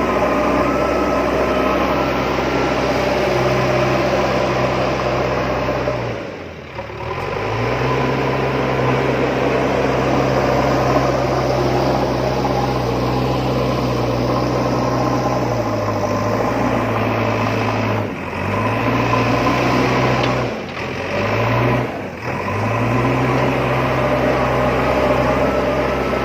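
Small electric motor of a homemade cardboard RC road roller whirring steadily. It cuts out briefly about six seconds in, and three more times near the end.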